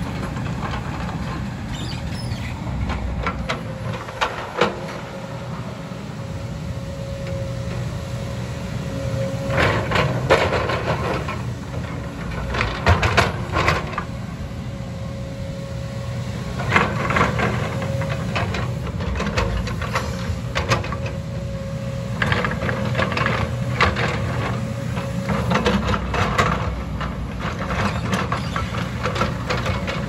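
JCB tracked excavator's diesel engine running steadily under a constant whine, while its bucket scrapes and knocks against rock and soil in clusters every few seconds.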